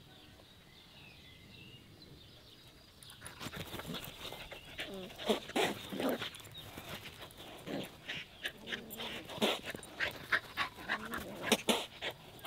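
A dog making short whines among a run of clicks and scuffles, which start about three seconds in.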